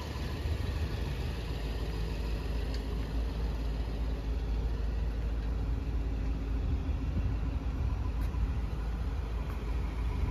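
Steady low rumble of a 2010 BMW 750Li's twin-turbo V8 idling.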